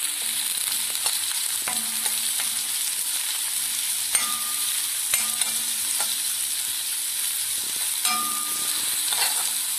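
Sliced onions, green chillies and curry leaves sizzling in hot coconut oil in a black kadai while a metal spoon stirs them, knocking and scraping against the pan several times, some knocks with a brief metallic ring. The onions are being sautéed toward light brown.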